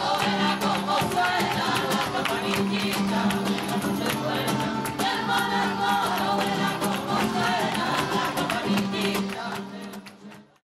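Background music with singing over a quick, steady percussion beat, fading out near the end.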